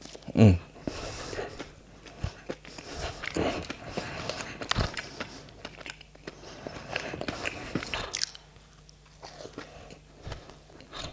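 Close-miked chewing of a glazed doughnut bite with crispy topping: irregular wet mouth clicks and small crunches that thin out after about eight seconds. A short vocal 'mm' sound, falling in pitch, comes right at the start.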